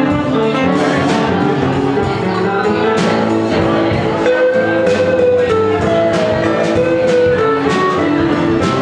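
Live blues band: long held harmonica notes played into the vocal microphone over strummed acoustic guitars and drums with occasional cymbal hits.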